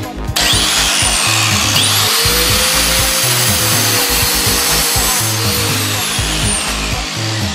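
Angle grinder cutting into an iPhone 6's aluminium body, starting about half a second in, its whine dipping and rising as the disc bites into the phone. Background music with a steady beat plays underneath.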